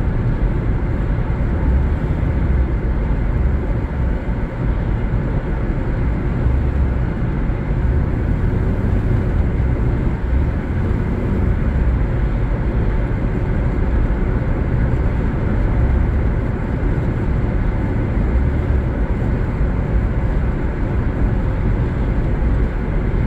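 Steady road and engine noise of a car being driven, heard from inside the cabin: a constant low rumble with no distinct events.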